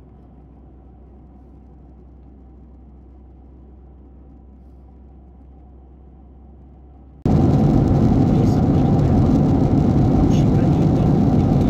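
Faint steady hum of an airliner cabin in flight. About seven seconds in, it cuts abruptly to a much louder, rough vehicle rumble.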